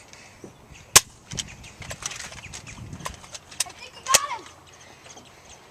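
A few sharp clicks, the two loudest about three seconds apart, with a brief voice just after the second.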